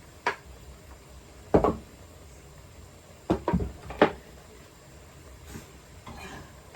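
About five dull knocks of a wooden fruit bowl and kitchen utensils as pounded yam is lifted out of the bowl, the loudest about one and a half seconds in and near the four-second mark.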